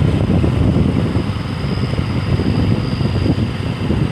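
Wind rushing over the microphone and a vehicle running steadily on the move, a dense low rumble. A faint, steady high-pitched tone sounds through the middle.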